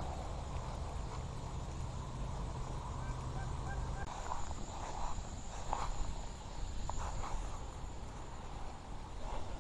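Outdoor ambience: a low steady hum that drops away about four seconds in, a faint high insect buzz, and a few faint bird calls.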